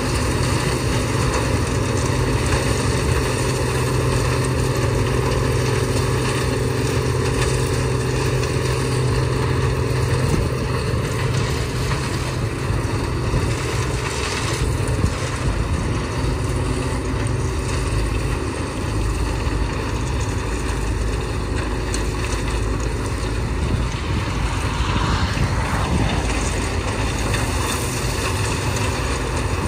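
CLAAS Mega 204 combine harvester running steadily while harvesting dry feed corn, a continuous engine drone mixed with the noise of its machinery. The deepest part of the hum weakens about ten seconds in.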